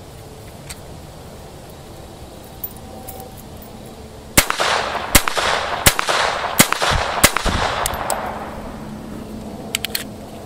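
Five unsuppressed shots from a Walther P22 .22 pistol firing hypersonic rounds, each a sharp crack, a little under a second apart starting about four seconds in, with echo that fades over a few seconds. A few light clicks near the end.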